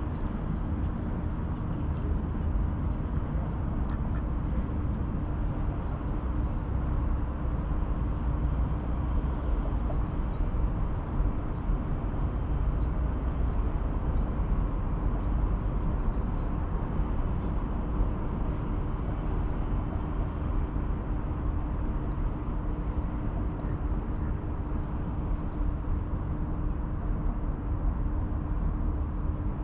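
Steady riverside outdoor ambience: a continuous low rumble with a steady hum over it.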